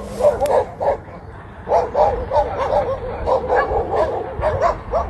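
Dogs barking in quick runs of short, high barks, breaking off for well under a second about a second in, then starting again.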